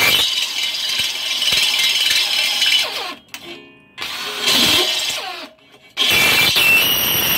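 Cordless drill spinning a die grinder burr into the hard steel of a bed rail, grinding out a bolt hole to make it larger. The drill runs in three bursts, stopping briefly about three seconds in and again about five and a half seconds in, its motor pitch rising and falling as it starts and stops.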